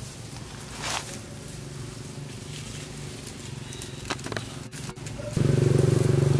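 Low background hum with a brief rustle and a few sharp clicks, then about five seconds in a loud engine cuts in suddenly and runs steadily with a fast flutter.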